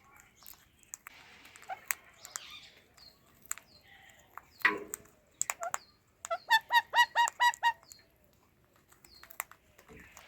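Ringneck parrots chirping and calling, with scattered short chirps and clicks, then a fast run of about ten loud, evenly repeated calls about six seconds in.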